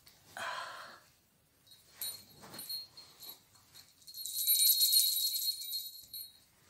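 Small bells jingling with a bright, high ringing. It starts faintly about two seconds in, is loudest from about four to six seconds, then stops.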